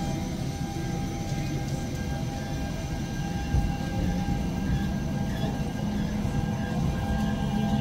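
Tram running on its rails: a steady low rumble with a constant electrical hum over it, and one short knock about three and a half seconds in.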